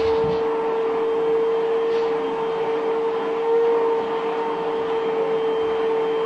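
Canister vacuum cleaner running with a steady motor whine and rush of air while its floor nozzle is run over a dog's coat.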